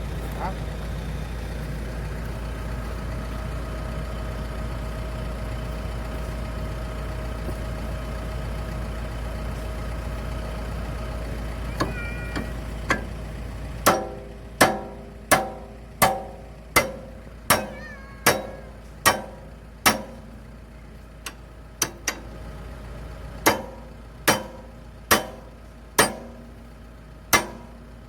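Excavator diesel engine running steadily, then dropping away about halfway through. From then on, sharp ringing hammer blows on steel about every three-quarters of a second, with a brief pause partway through the run.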